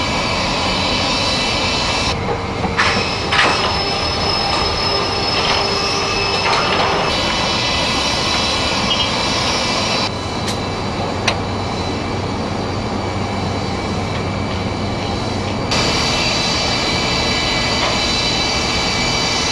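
Airport ramp noise around a Boeing 747-400 freighter: a steady jet turbine whine over a machinery hum, with the sound changing abruptly several times as shots cut, and two sharp clicks about ten and eleven seconds in.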